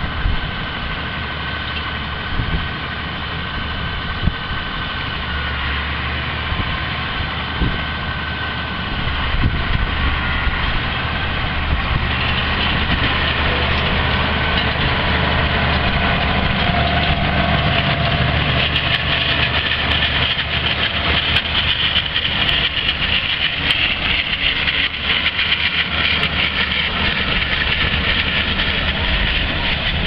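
Massey Ferguson 7619 tractor's six-cylinder diesel running steadily under load while it pulls a working Welger round baler gathering hay, the baler's machinery rattling along with it. The sound grows louder about twelve seconds in as the outfit comes close.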